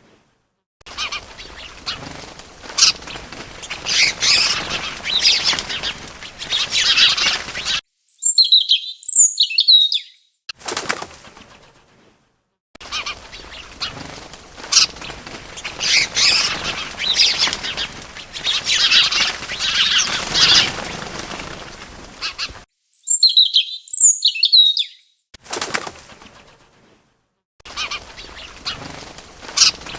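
Bird wings flapping in long fluttering stretches, broken twice by a short burst of high, sliding chirps from a small bird.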